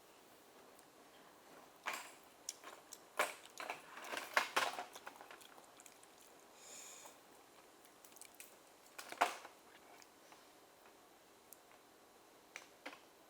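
Eating steamed oysters: chewing and biting with sharp clicks, in a cluster about two to five seconds in, a loud one near nine seconds and a few more near the end.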